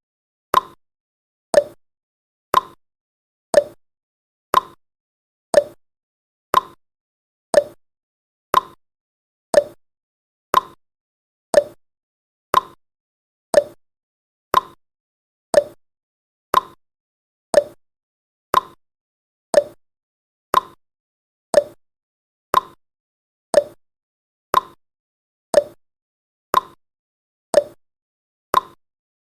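Countdown timer sound effect: one short, sharp tick every second, evenly spaced.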